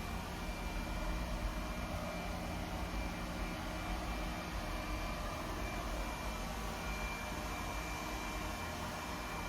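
Lefant LS1 robot vacuum running: a steady whir from its suction fan and brushes, with a thin high whine held throughout.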